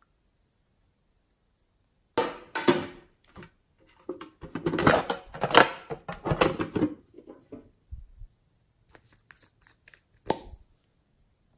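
Close-up handling of slime containers and add-ins: a few seconds of dense crackling and scraping, then several sharp clicks near the end.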